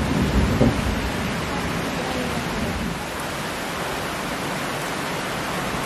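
Heavy rain pouring down in a storm, a steady even hiss.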